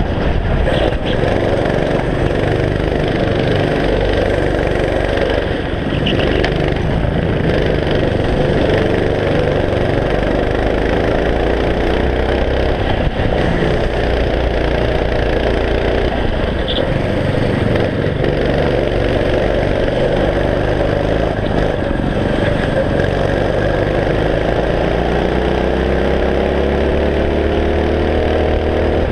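Go-kart's small engine heard close up from a camera on the kart, its pitch dropping off and climbing again as it lifts for corners and accelerates out, rising steadily over the last few seconds.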